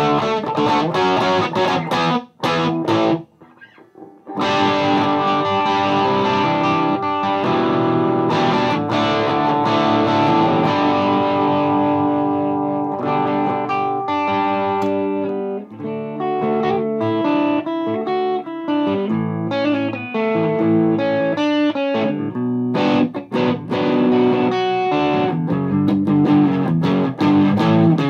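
Gibson Les Paul electric guitar played through a Mesa Boogie Dual Rectifier on channel 1, in Spongy power mode at 50 watts, into a Marshall 1960A 4x12 cabinet. Ringing chords with a short break about three seconds in, a run of single picked notes in the middle, then chords again.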